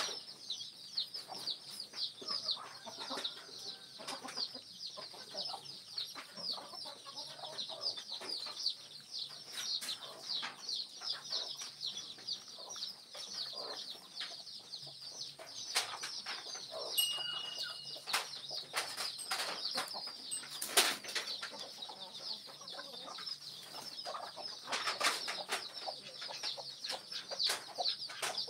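Farmyard chickens and pigs feeding on the ground: scattered clicks and knocks of pecking and rooting, with occasional hen clucks, over a fast, steady high chirping.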